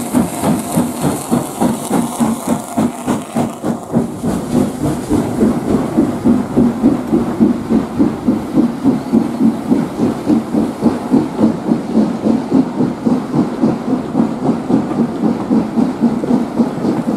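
Southern Railway S15 class steam locomotive No 847 working a passenger train past: a steady, rapid beat of about three pulses a second. There is a high steam hiss that fades after about four seconds, and then the coaches roll by.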